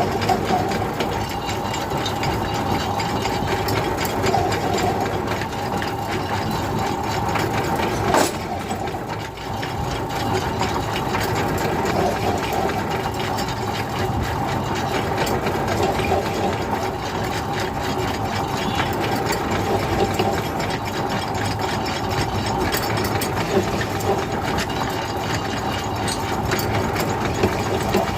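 Construction machinery running steadily: a continuous engine sound with dense rattling and clatter, and one sharp knock about eight seconds in.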